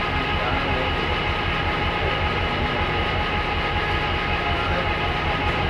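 Diesel passenger train idling while stopped at a station: a steady engine hum with a low, even throb and a faint steady whine above it.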